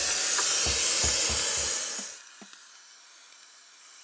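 Handheld Pur Steam steam cleaner hissing loudly as it blows steam onto built-up ice, with a few low thumps under the hiss. The hiss cuts off about two seconds in and only a faint hiss remains, as the steamer's water tank is nearly empty.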